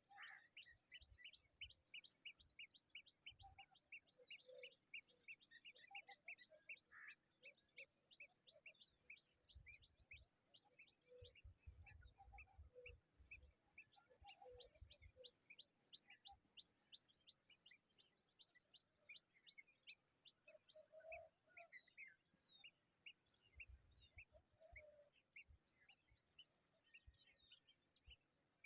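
Small birds chirping faintly in long, rapid runs of short high notes, about five a second, with a few soft low bumps around the middle.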